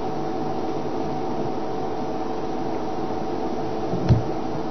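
Steady mechanical hum with several held tones, and a single short knock about four seconds in.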